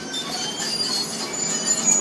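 Excavator at work on a trench: high metallic squeals and clinks over a steady engine rumble, growing louder.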